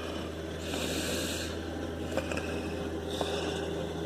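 Low, steady engine hum with two short bursts of hiss, one about a second in and one near three seconds in.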